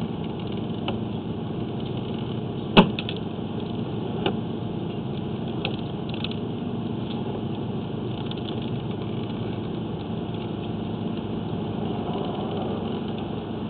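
Steady engine-like running noise, with a single sharp click about three seconds in.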